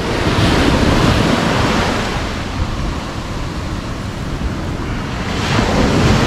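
Sea surf washing up a beach, swelling louder twice, near the start and again near the end, with wind buffeting the microphone.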